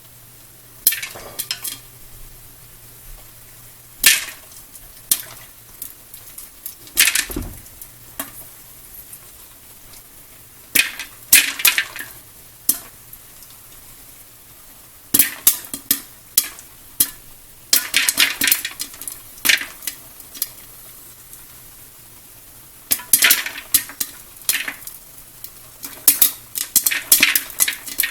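Popcorn kernels popping in hot oil inside an electric stirring popcorn machine: sharp single pops, sparse at first, then coming in quicker clusters toward the end as the batch gets going, over a faint steady motor hum.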